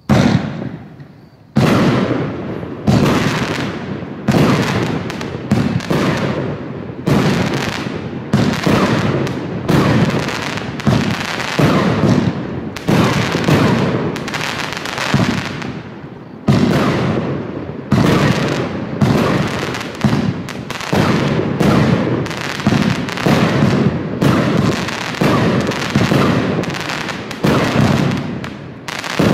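Funke Chrys-Rain Blue 25-shot firework cake firing a rapid series of sharp bangs, about one a second, each trailing off in crackling from the silver crackle tips of the bursts.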